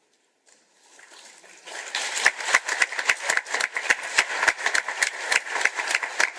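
Audience applause: it starts faintly about half a second in and swells to loud, dense clapping after about two seconds.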